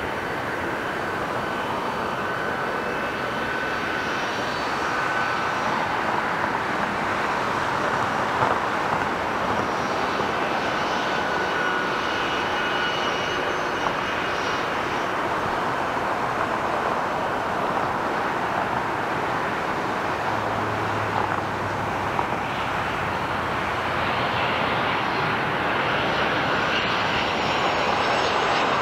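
Twin-engine jet airliner's engines running on the ground: a steady rush of jet noise with faint high whining tones. It grows a little louder and brighter near the end.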